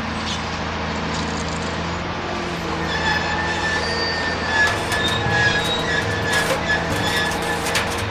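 Steady mechanical running hum of a small motor-driven machine, with a high-pitched squeal joining about three seconds in and scattered clicks.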